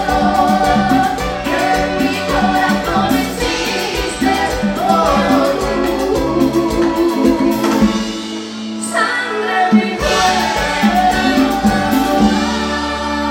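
Live dance band (orquesta) playing a Latin song with singing, amplified. About two-thirds of the way through, the bass drops out briefly, then a loud hit brings the full band back, and it settles into a held chord near the end.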